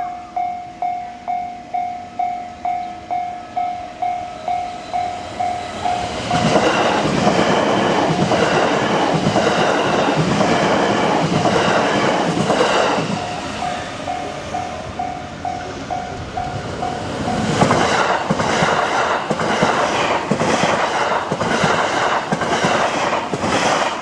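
Japanese level-crossing warning bell ringing, a repeating electronic ding about twice a second. About six seconds in, a JR West electric commuter train passes close by, its wheels clattering over the rail joints and covering the bell. The bell comes through alone for a few seconds, then another train passes from about two-thirds of the way in, with quick regular wheel clacks.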